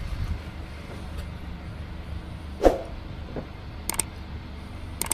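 ATV engine idling with a low, steady hum. A single knock about two and a half seconds in, and two sharp clicks a second or so later.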